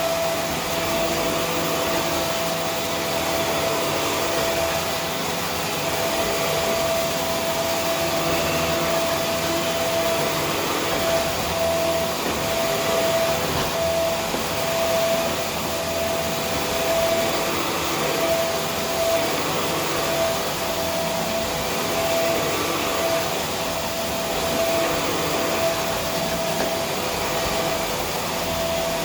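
Vacuum cleaner running steadily: a broad rushing of air under one steady motor whine, the whine wavering on and off in the second half.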